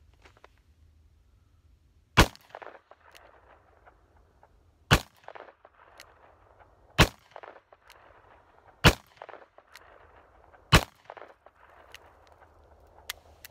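Five shots from a Taurus Tracker .44 Magnum revolver firing .44 Special 200-grain rounds, spaced about two seconds apart, each followed by a brief echo. The revolver fires all five without a hitch.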